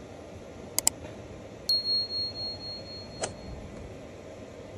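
Subscribe-button sound effect: two quick mouse clicks about a second in, then a single high bell ding that rings out and fades over about two seconds, and one more click near the end. A steady low hiss runs underneath.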